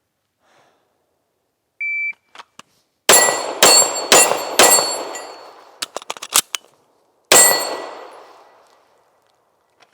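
Shot timer's start beep, a short steady tone, then pistol shots at steel targets: four quick shots about half a second apart, a few lighter clicks, and a fifth shot about three seconds later, with the steel ringing after the hits.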